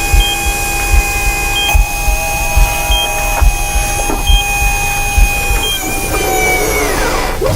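Sci-fi medical machinery sound effect: a steady electronic hum of several tones, a short high beep about every second and a half, and a low pulsing rumble. About six seconds in, the tones slide downward as the machinery winds down.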